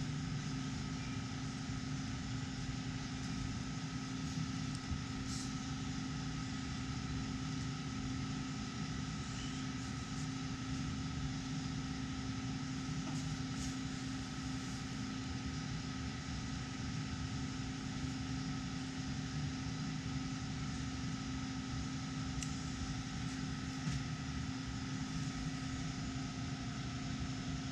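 A steady machine hum with a constant tone, unchanging throughout, with a few faint clicks of small carburetor parts being handled.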